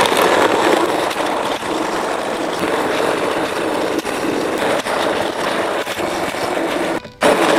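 Immersion blender running in a bowl of mitten crabs and water, grinding the hard shells into a thick slurry. It stops briefly near the end, then starts again.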